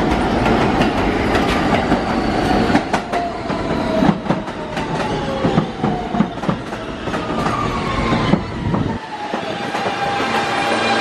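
R160B subway train pulling into the station. Its wheels knock irregularly over the rail joints, and the electric motor whine slides down in pitch as it brakes. The knocking spaces out as the train slows.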